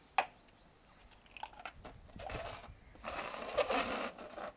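Small plastic cups handled on stone patio tiles: a sharp click, a few light taps, then two stretches of scraping and rustling as the cups are set down and slid about.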